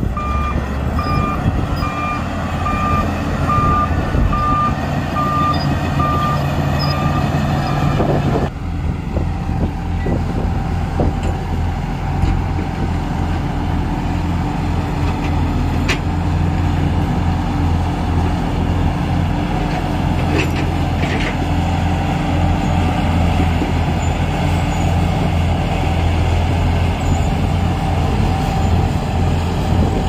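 Shantui crawler bulldozer's diesel engine running steadily under load as it pushes earth. A reversing alarm beeps about once a second for the first eight seconds; after a sudden break the engine runs on without beeps.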